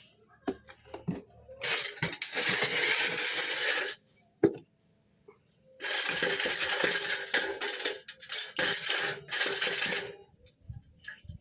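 Loose metal gearbox parts rattling and scraping in two long stretches, the second about twice as long as the first, with scattered clicks and a single sharp knock between them.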